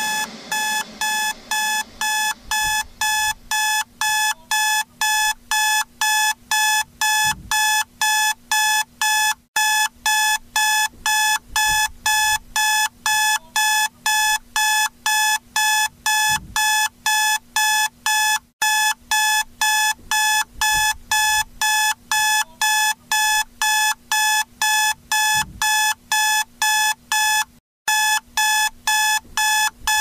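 Electronic wake-up alarm beeping, a high pitched beep repeated about twice a second with a brief break every nine seconds or so, signalling the end of a timed nap.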